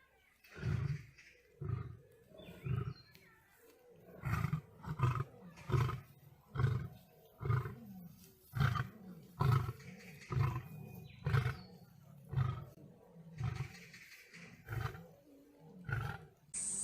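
A lion's roaring bout: a long series of short, deep roars, about one a second, that space out a little near the end.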